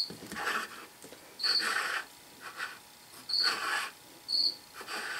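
Oiled fingers rubbing oil onto the bare steel parts of a 3-jaw lathe scroll chuck: short rubbing strokes about every second or two, most of them opening with a brief high squeak.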